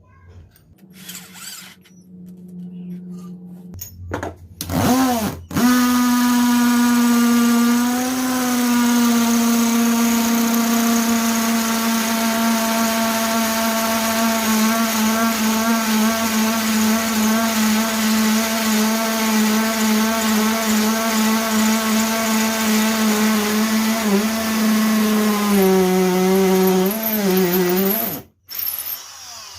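Maktec MT081 cordless drill motor running on an 18 V Makita LXT battery. A short rev about five seconds in is followed by a steady, high-pitched whine for some twenty seconds; the speed wavers near the end, then the motor stops abruptly.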